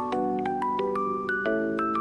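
Background music: a light pop tune with a chime-like melody stepping over held chords.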